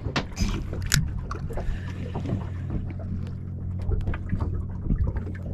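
Small fishing boat drifting with water slapping against the hull, over a steady low hum. Scattered knocks and clicks, with a sharp click about a second in.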